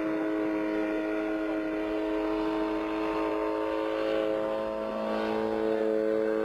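Engine of a small homebuilt single-seat helicopter running steadily in flight overhead, a continuous pitched hum whose pitch shifts slightly about five seconds in.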